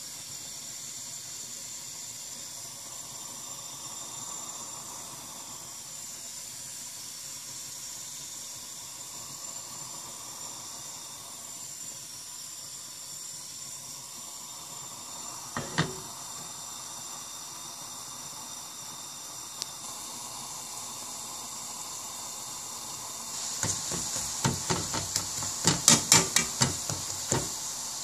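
Spiced egg-and-flour pancake batter frying in oil on a hot black pan, a steady sizzle. Near the end comes a run of loud, sharp clicks and crackles lasting a few seconds.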